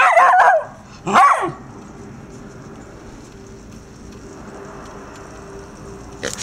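Irish Terrier puppy barking twice, about a second apart.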